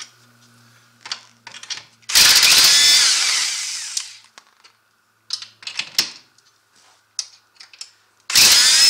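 Handheld power tool spinning a 15 mm socket to back out the ATV's skid-plate bolts, in two bursts of about two seconds: one about two seconds in, and another starting near the end. Short metallic clicks of the socket being fitted to the bolts come between them.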